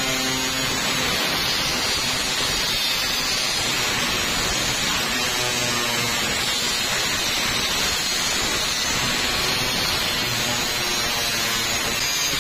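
Angle grinder grinding the edge of a rusty steel plate: a steady, harsh grinding noise with the motor's whine underneath, unbroken throughout.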